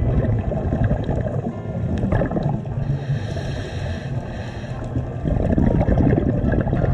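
Underwater noise heard through a camera's waterproof housing: a muffled rumble with bubbling and crackling, easing off midway and swelling again about five seconds in.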